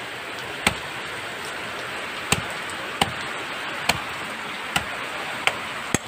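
Machete hacking through the husk of a green young coconut: about seven sharp chops at uneven intervals, over the steady hiss of rain.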